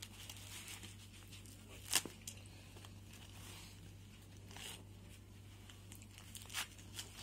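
Leather riding gloves being handled and turned over: rustling and rubbing with a few short sharp crackles, the loudest about two seconds in.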